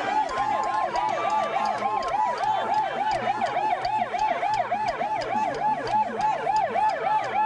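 Ambulance siren sounding in a fast yelp, about four rising-and-falling sweeps a second.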